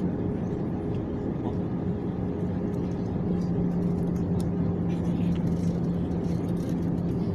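Steady drone inside an airliner's cabin in flight, from the jet engines and the air rushing past, with a constant low hum running through it.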